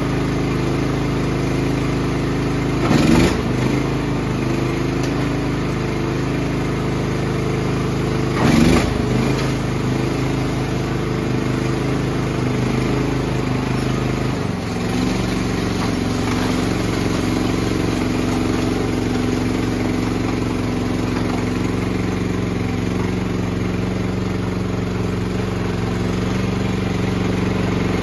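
Wado SX1392 tracked snowblower engine running steadily, with two brief louder bursts about 3 and 8½ seconds in. Its pitch shifts about halfway through, as the engine speed changes.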